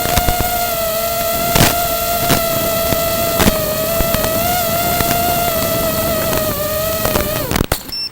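FPV racing drone's electric motors and propellers whining steadily, with wind noise and a few sharp knocks. Near the end the pitch drops as the motors spin down, and the sound cuts off.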